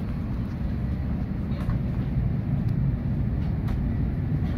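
Steady low rumble inside an airliner cabin on the ground, with a few faint clicks about a second apart.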